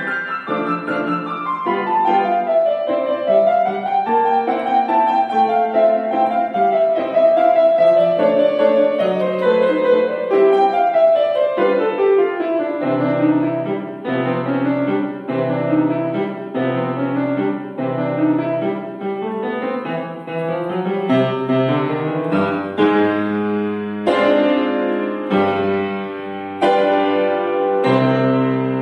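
Grand piano played solo: a classical piece with a winding melody over low bass notes, moving into heavier repeated chords near the end.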